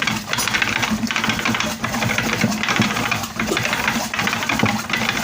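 An engine running steadily, a rapid, even pulsing with a low hum underneath.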